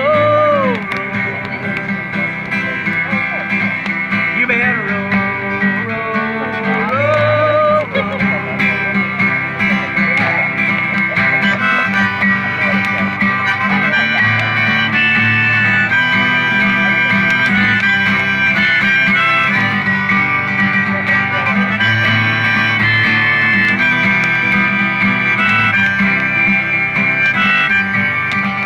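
Acoustic guitar strummed through an instrumental stretch of a country-style song. A voice holds a bending sung note just after the start and again around seven seconds in.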